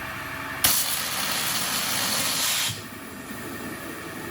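A 60,000 psi waterjet's cutting stream hissing loudly for about two seconds, starting and stopping abruptly, over the machine's steady running noise.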